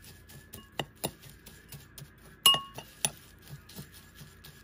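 Metal spoon stirring dry rolled oats, cinnamon and sugar in a glass bowl, clinking against the glass at irregular moments. The loudest clink, about two and a half seconds in, rings briefly.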